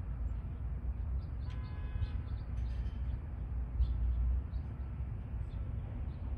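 Steady low outdoor rumble with scattered short bird chirps, and one brief high tone with overtones about a second and a half in.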